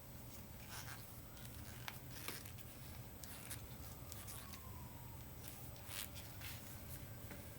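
Faint scattered clicks and rustles of handling in a small room, with a faint tone falling in pitch a few times.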